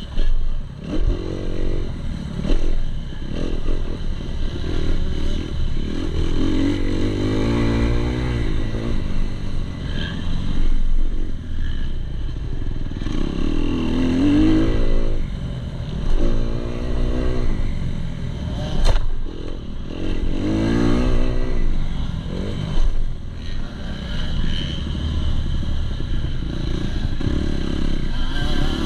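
2019 Kawasaki KX250 motocross bike's four-stroke single-cylinder engine ridden hard on a dirt track, revving up and dropping off again and again as it climbs through the gears and backs off for corners and jumps.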